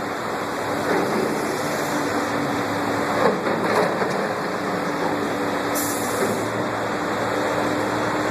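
Heavy construction machine's engine running steadily as it pushes a dirt pile, with a constant hum under a wash of outdoor noise.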